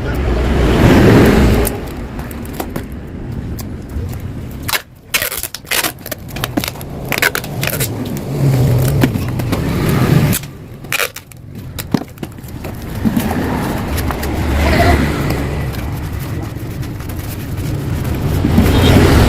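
Yamaha RX-King's two-stroke single-cylinder engine revving in repeated swells through its freshly hollowed-out exhaust, with a choppy stretch of on-off throttle in the middle, showing off the crisp, snarling note the muffler was modified for.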